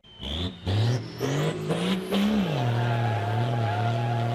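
Pickup truck engine revved in short surges with the pitch climbing for about two seconds, then dropping back and holding a steady high rev. A thin high whine rises alongside the first surges.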